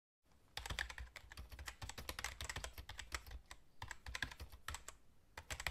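Typing on a computer keyboard: a rapid, irregular run of key clicks that cuts off suddenly at the end.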